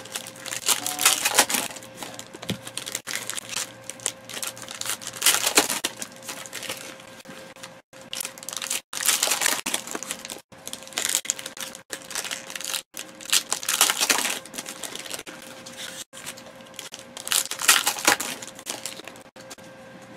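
Foil trading-card pack wrapper crinkling and tearing in repeated bursts as it is opened and handled by hand, with a faint steady hum beneath.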